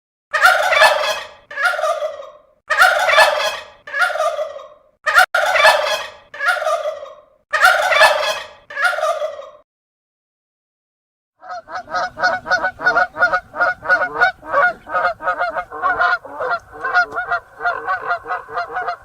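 Turkey gobbling: four rounds, each a gobble followed by a shorter one. After a short pause, about two thirds of the way in, geese start honking in quick succession, several honks a second.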